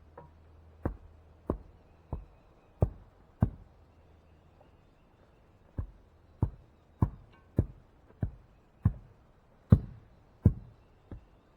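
Heavy, regular thuds, about one every 0.6 seconds, from blows setting a post in the ground: five strokes, a short pause, then about ten more.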